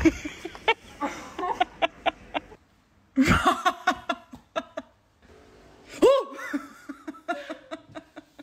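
Women screaming in fright, each startled cry followed by laughter, three times over.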